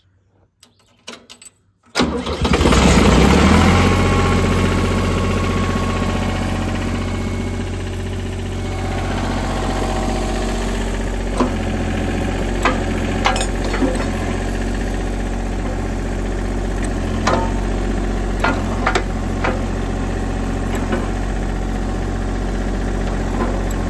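Ditch Witch 3500 trencher's engine started with the key, catching suddenly about two seconds in and then running steadily. Scattered sharp clicks and clanks come over the running engine from about halfway on.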